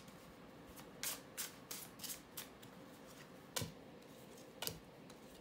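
Tarot cards being shuffled by hand and dealt onto a tabletop: a run of short, soft card flicks, then two sharper taps in the second half as cards are laid down.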